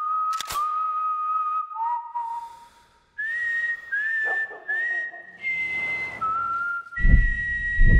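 A slow whistled melody, one held note at a time with small upward slides into each note. A sharp bang cuts in about half a second in, and deep booming hits start in the last second.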